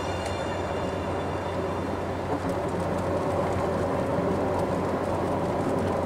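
Steady road and engine noise inside a car cruising at highway speed: an even rumble of tyres and engine with a low hum.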